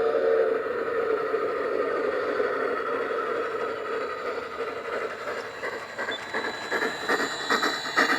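Bachmann K27 model steam locomotive running along the track: a whistle-like tone fades out in the first second, then a steady running noise with sharp clicks from the wheels on the rails that grow louder and more frequent near the end.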